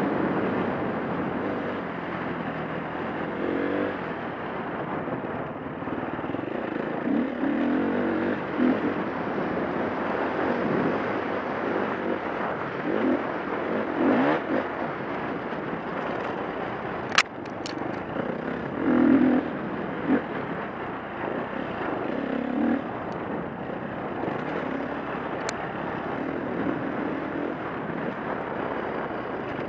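2011 KTM 350 dirt bike's four-stroke single-cylinder engine under race load, revving up and down over and over as it is ridden hard over a dirt trail. A couple of sharp clicks about 17 seconds in.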